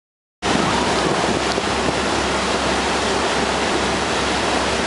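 Rigid inflatable boat under way: wind rushing over the microphone and water rushing past the hull, over a steady low engine hum. It starts abruptly about half a second in.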